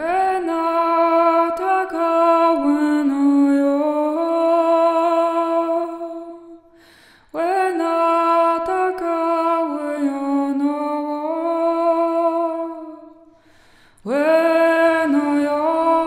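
A woman's voice singing long, wordless held notes that glide slowly in pitch, in three phrases with short pauses for breath, the second starting about seven seconds in and the third about fourteen seconds in.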